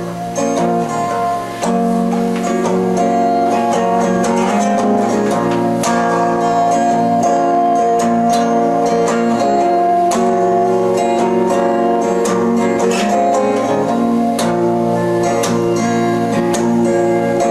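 Guitar strummed and picked, playing an instrumental passage of a song without singing.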